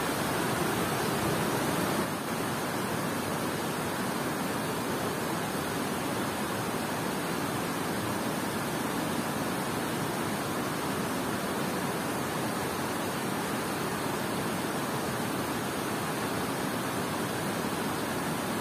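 Water pouring over a dam spillway into a fast river current: a steady rush of water noise.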